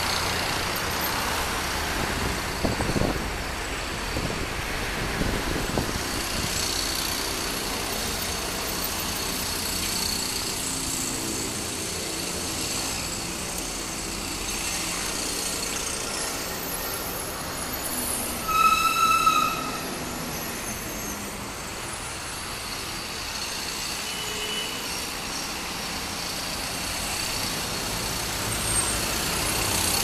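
City street traffic: road vehicles running past with a steady traffic hum. About two-thirds of the way through, a short, loud, high-pitched tone with overtones sounds for about a second.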